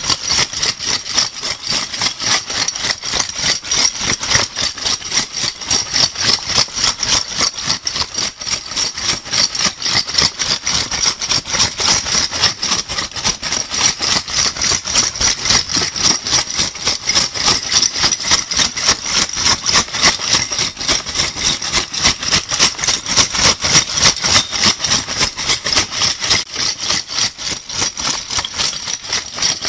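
Metal crown bottle caps shaken together, a steady jingling rattle of many quick clinks repeating several times a second without a break.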